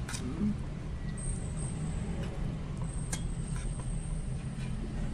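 A metal spoon clicking and scraping against a cooking pot a few times while food is scooped, over a steady low hum.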